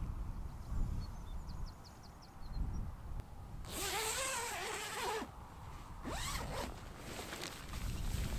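Naturehike Cloud Peak 2 tent's door zipper being pulled open from inside: one long zip about four seconds in, then a shorter pull a second or so later.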